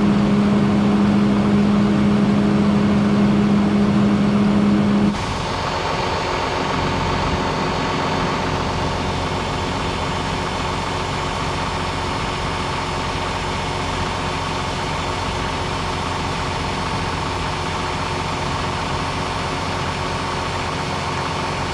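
Tractor engine running steadily, warming up at idle. About five seconds in, the sound cuts abruptly to a slightly quieter, steady engine drone with a different tone.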